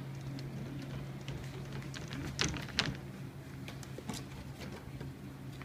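Black Russian terrier puppies scuffling and rustling about on a blanket, with two sharp scratchy noises about two and a half seconds in, over a steady low hum.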